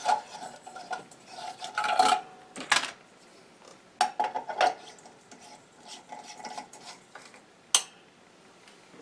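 LED light bulbs being unscrewed and screwed into a desk lamp socket, with scraping and clinking of the bulb bases and handling. A single sharp click comes near the end as the lamp is switched back on.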